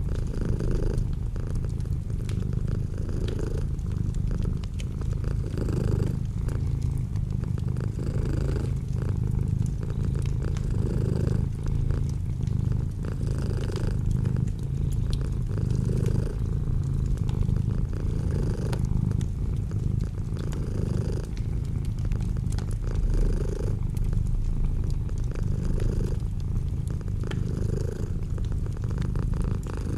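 Domestic cat purring steadily. The sound swells regularly about every two and a half seconds.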